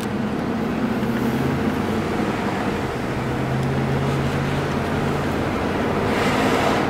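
1997 Chevrolet K1500 Z71 pickup driving, heard from inside the cab: a steady low fuel-injected V8 hum under tyre and road noise. The rush of noise grows briefly about six seconds in.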